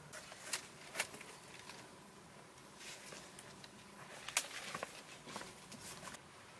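Dry leaf litter rustling and crackling as someone moves over it and handles a jackfruit: scattered sharp crackles, with the loudest snap and a quick run of crackles about four seconds in.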